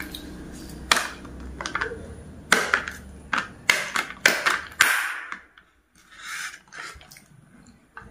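A plastic drinking straw jabbed at the sealed plastic film lid of a cup of iced tea: about eight sharp taps and pokes over the first five seconds until it pierces the seal, followed by a brief sucking sip through the straw.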